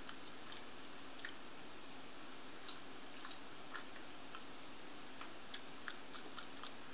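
Faint mouth sounds of a person chewing a soft sweet: small scattered clicks and smacks over a steady low hiss, a few more of them near the end.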